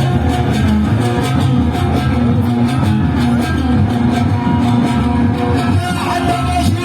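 Instrumental music with plucked string sounds, held notes and no singing.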